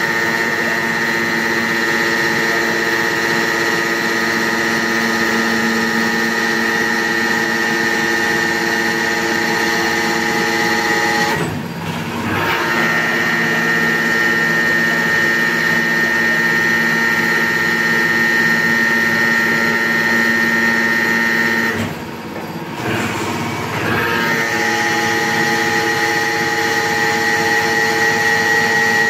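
Machine pile-driving rig running steadily: its motor and hydraulics give a constant drone with a high whine. The sound drops off briefly twice, once about halfway and again a little later, then comes back at the same pitch.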